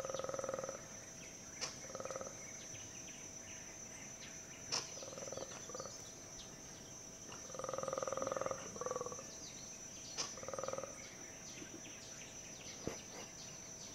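Black-and-white colobus monkeys giving pulsed, croaking roar calls in short bouts of half a second to a second, several times, the longest about eight seconds in. A steady high insect whine runs underneath, with a few sharp clicks.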